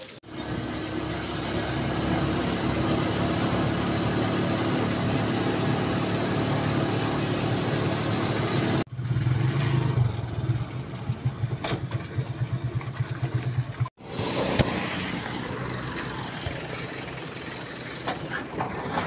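Motorcycle tricycle engine running while riding in its sidecar, with road noise; louder and more uneven after about nine seconds. The sound breaks off sharply twice, about nine and fourteen seconds in.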